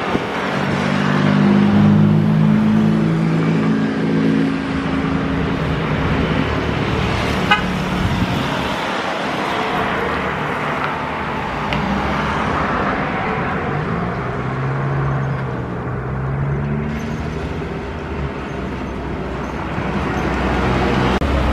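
Jet airliner engines at high thrust during takeoff, a steady loud rumble, mixed with road traffic whose engine tones rise and fall now and then.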